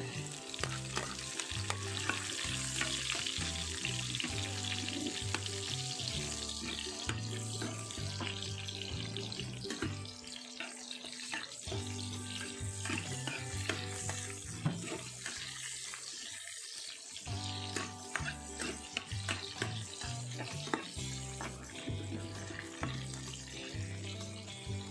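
Onions, garlic and ginger sizzling in oil in a metal pan, stirred now and then with a metal spatula. Background music with a steady bass line plays underneath.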